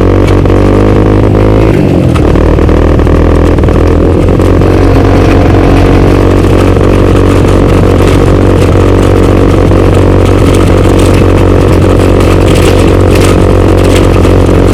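A small vehicle engine running steadily at speed, close and loud, its pitch shifting once about two seconds in and then holding even.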